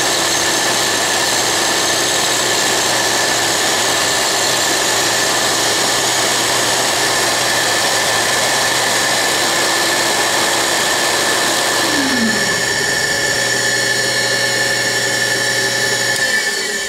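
Dumore toolpost grinder and lathe running with a steady high whine, the grinding wheel sparking against a hardened lathe center at first. About twelve seconds in, one motor's pitch falls as it winds down, and right at the end the machine sound starts to die away.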